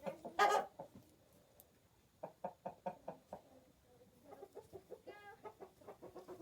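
Domestic chickens clucking, with a loud squawk about half a second in and quick runs of short clucks through the rest.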